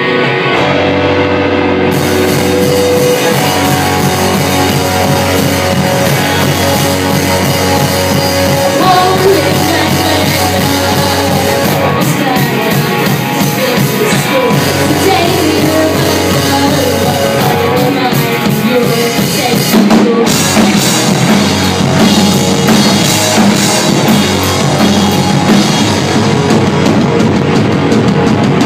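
Live rock band playing loudly: electric guitars, electric bass and a drum kit, with a woman singing.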